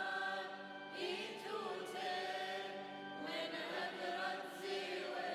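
Soft background music of held, choir-like chords, changing chord about a second in and again a little after three seconds.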